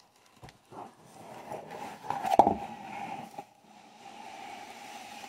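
Cardboard box being tilted and slid out of a shipping carton packed in styrofoam: cardboard and foam rustling and scraping, with one sharp knock about two and a half seconds in.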